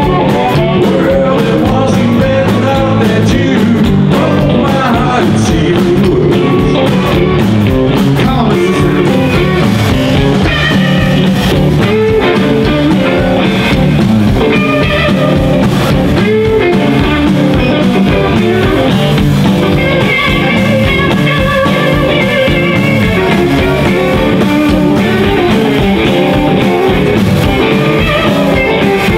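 A live band playing loud blues-style rock and roll: two electric guitars, one a cream hollow-body with a vibrato tailpiece, over upright double bass and drums.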